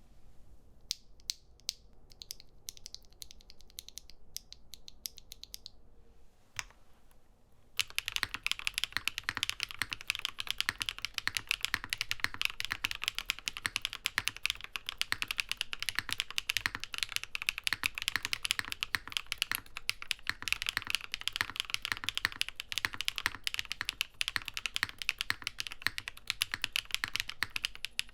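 Mechanical keyboard typing on a NovelKeys Classic TKL with Keygeek Purple Dawn linear switches, full and crisp sounding. Light, scattered keystrokes for the first several seconds and a lone keypress, then about eight seconds in a fast, continuous stream of louder keystrokes.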